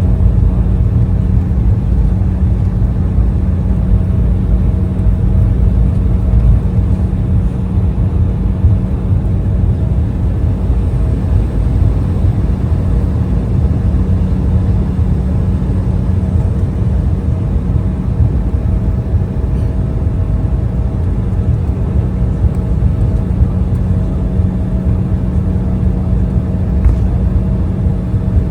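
Steady low drone inside the cabin of an Embraer E175 on the ground: a deep rumble with a few steady hum tones over it, unchanging throughout.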